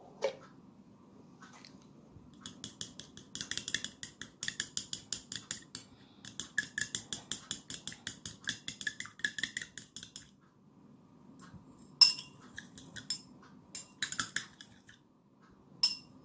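A long metal spoon stirs milk into butterfly pea flower tea in a stemmed drinking glass. It clinks against the glass quickly, about five times a second, for some seven seconds. Then it stops, and a few separate, louder taps on the glass follow near the end.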